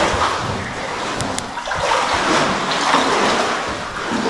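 Water sloshing and splashing as people wade through deep water, coming in repeated swells.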